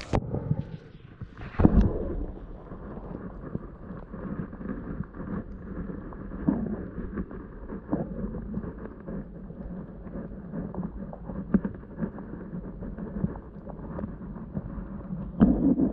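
Muffled underwater sound picked up by a submerged GoPro Hero 7 Black: a dull, steady wash of water with scattered knocks from the camera being handled. There is a louder thump about two seconds in and another near the end.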